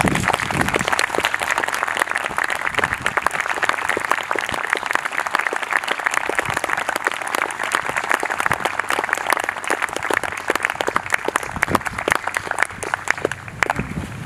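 Congregation applauding, a dense patter of many hands clapping steadily, dying away near the end.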